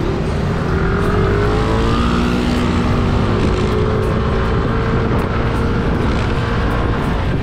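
Motorcycle engine pulling away from a stop and accelerating, its pitch rising, dipping briefly about three seconds in, then rising again, over steady wind and road noise.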